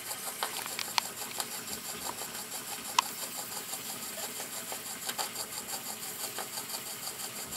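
Small single-acting walking-beam model steam engine running on live steam: a soft, quick, even mechanical rhythm from its moving parts, with a few light clicks and one sharper click about three seconds in.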